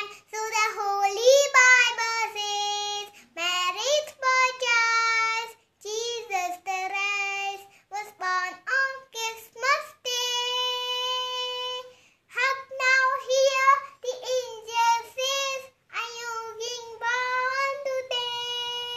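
A young girl singing a Christmas carol solo, unaccompanied, in phrases with long held notes and short breaths between them.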